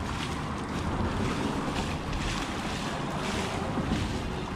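Several bursts of water splashing as a hooked nurse shark thrashes in shallow water, over a steady rumble of wind on the microphone.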